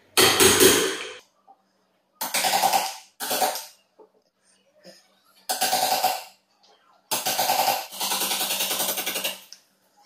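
Claw hammer striking a wood chisel in quick runs of light taps, five bursts with short pauses between, the chisel cutting a latch mortise into the edge of a wooden door. The longest run comes near the end.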